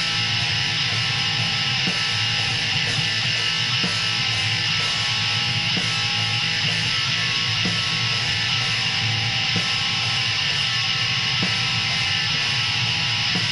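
Black metal music from a lo-fi demo recording: guitars in a dense, unbroken wall of sound, with a faint hit about every two seconds.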